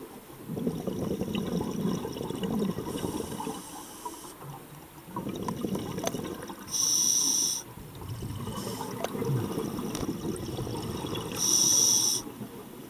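Scuba diver breathing through a regulator underwater: exhaled bubbles burble low in long gushes, and sharp hissing inhalations come about halfway through and again near the end.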